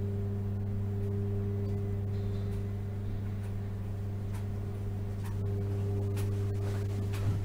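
Steady low hum with several pitched overtones, with a few faint clicks near the end.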